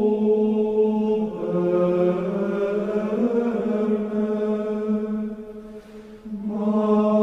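Slow sung chant in long held notes that step up and down in pitch, with a short break between phrases about six seconds in.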